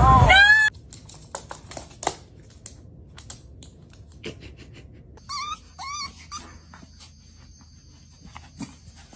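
A dog whining: a loud rising squeal that cuts off suddenly right at the start, then three short high whimpers around the middle, among faint clicks and taps.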